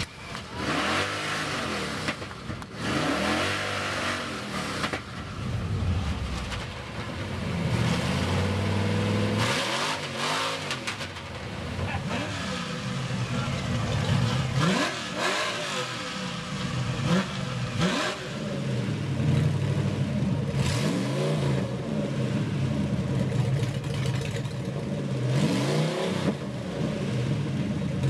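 Cars driving past one after another, their engines revving. The pitch of each engine rises and falls as it passes, about every two to three seconds.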